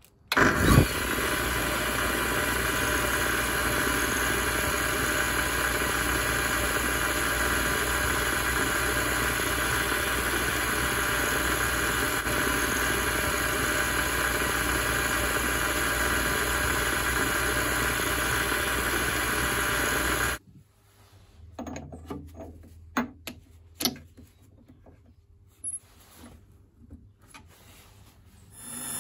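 Mini lathe starting up with a quick rising whine and then running steadily while a 3.2 mm drill bores into an aluminium part. About two-thirds of the way through the running stops suddenly, and scattered metal clicks and knocks follow.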